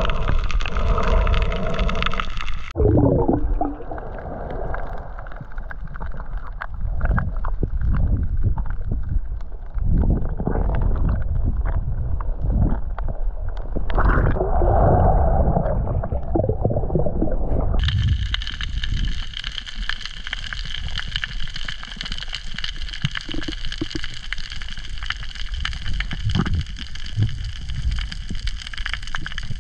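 Muffled underwater sound picked up by an action camera on a free dive: low rushing water and bubbling with scattered knocks. About eighteen seconds in, a steady high hum joins it.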